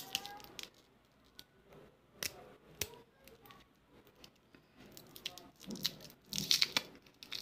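Lollipop wrapper crinkling and tearing as fingers peel it off a round hard-candy lollipop, with a few sharp clicks and a louder burst of crinkling about six seconds in.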